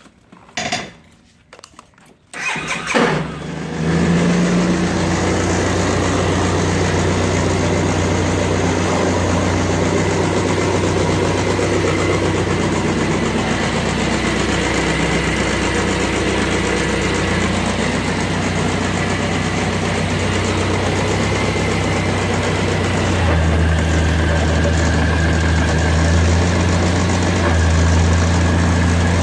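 2003 Suzuki Burgman 650 scooter's parallel-twin engine starting about two and a half seconds in, after a couple of short clicks, then running steadily; its low note grows stronger late on. The owner suspects the bad noise comes from the CVT or a pulley.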